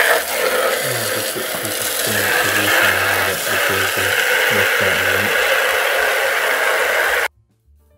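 Garden hose spray nozzle shooting a steady jet of water into a black plastic water trough, a loud continuous spraying hiss and splash that cuts off suddenly about seven seconds in.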